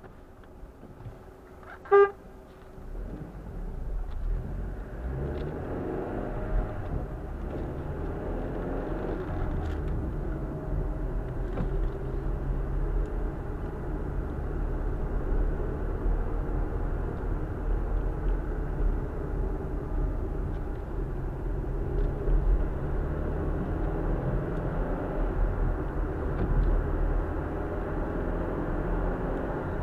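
One short car-horn toot about two seconds in, then a car's engine and tyre noise, heard from inside the car, rising as it pulls away from a stop and holding steady while it drives on.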